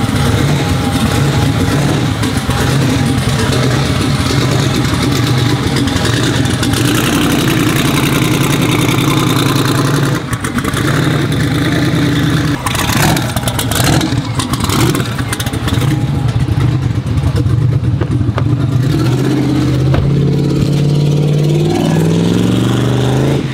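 Turbocharged Chevrolet Silverado pickup's engine running at a steady low idle as the truck pulls out, then revving, its pitch rising over the last few seconds.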